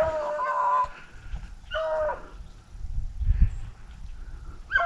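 Beagles baying on a rabbit's trail: a long drawn-out bawl at the start, a shorter one about two seconds in, and another starting right at the end.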